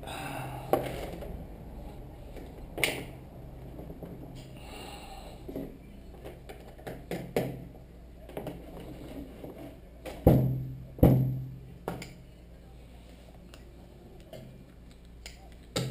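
Irregular clicks and knocks of a plastic suction-cup camera mount being handled and pressed against a wooden desk. The loudest are two knocks about ten and eleven seconds in, each with a short hollow ring.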